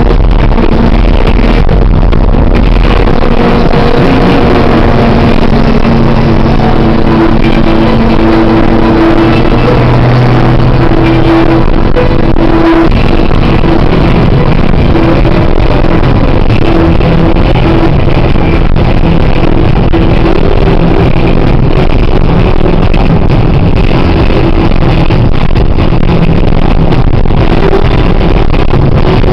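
Loud, constant road and engine noise of a car driving at highway speed, heard from inside the cabin, with music playing over it.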